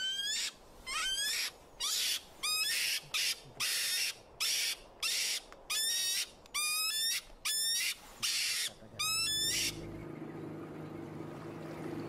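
An animal's short rising squeals, repeated, with hissing bursts between them at about two a second. They stop near the end, leaving a steady low hum.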